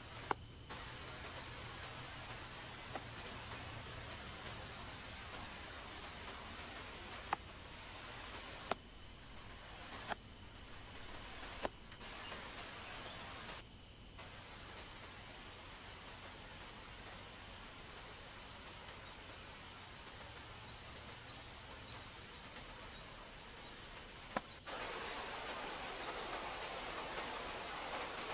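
Insects trilling steadily in a high, evenly pulsing buzz, with a few scattered sharp knocks of a wooden stake being pounded into the ground with a heavy block. Near the end a louder hiss of background noise comes in.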